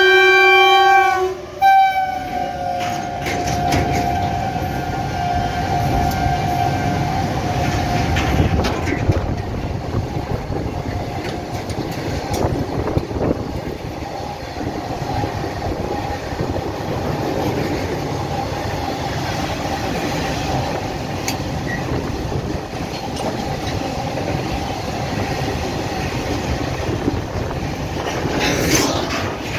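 A WAG9 electric locomotive's horn sounds and cuts off about a second and a half in. A long freight train then passes close at full speed: a steady heavy rumble, with wheels clattering over the rail joints as the wagons go by.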